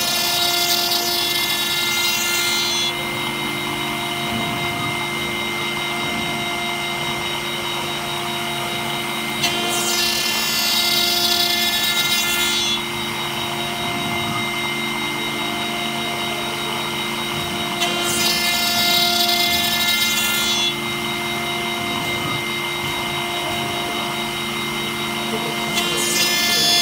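CNC router spindle with a small end mill milling a brass plate: a steady whine, with a louder, higher cutting noise that swells for about three seconds roughly every eight or nine seconds.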